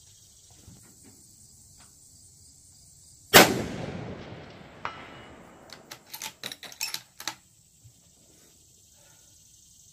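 A single scoped rifle shot about a third of the way in, its report echoing and fading over about a second and a half. A quick run of sharp mechanical clicks follows a couple of seconds later.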